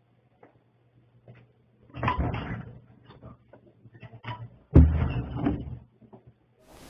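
Door being handled in a quiet room: scattered small clicks and rustling, then a sharp knock about five seconds in, followed by a second of rustling.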